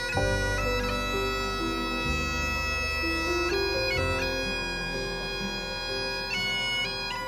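Bagpipes playing a tune over steady drones, the melody stepping from note to note, as a memorial tribute.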